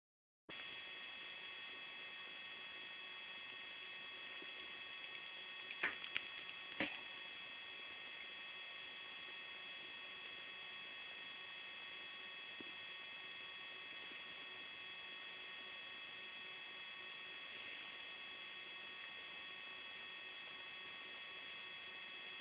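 Faint steady hum and hiss with a few thin, high whining tones, broken by a couple of short clicks about six and seven seconds in.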